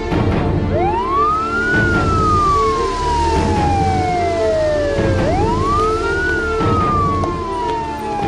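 Ambulance siren wailing: its pitch climbs quickly and then falls slowly, a cycle that begins about a second in and starts again about five seconds in. Background music plays underneath.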